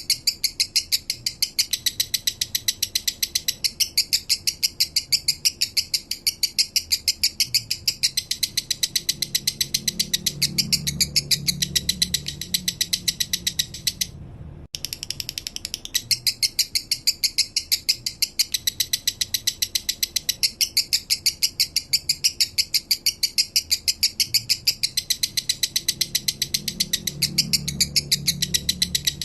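Male lovebird singing its slow 'minor' song: a long, even run of rapid, high, dry chirps, several a second, with a brief break about halfway through.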